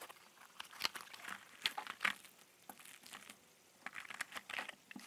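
Small cardboard box being opened and unpacked by hand: irregular crinkling and crunching of cardboard and packaging as the parts are pulled out and set down, in short bursts with a busier stretch near the end.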